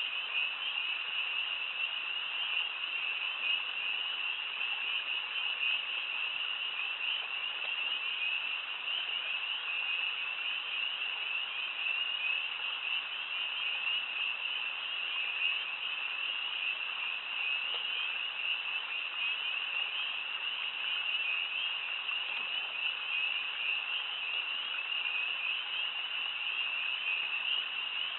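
Dense chorus of frogs calling from the wetland, many high, short calls overlapping into a steady, unbroken din.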